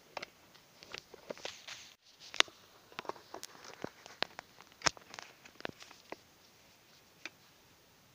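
Irregular clicks, taps and knocks of small hard objects being handled, loudest about two and a half and five seconds in, dying away after about six seconds.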